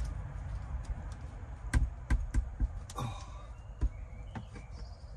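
Several sharp clicks and knocks of hand grips working on a tight plumbing fitting of the van's water system to loosen it, a cluster of them about two seconds in and a couple more near four seconds.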